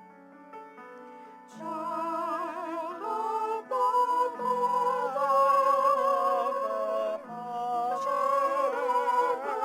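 Church anthem sung with vibrato over a sustained instrumental accompaniment; the accompaniment plays softly at first and the singing comes in, much louder, about a second and a half in.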